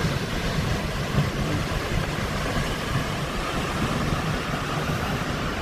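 Steady rushing of a waterfall, a continuous noise heaviest in the low end.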